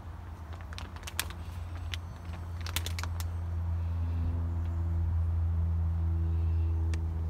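A low, steady machine hum that grows louder about two seconds in and gains a few steadier higher tones partway through, with a few light clicks and taps in the first half.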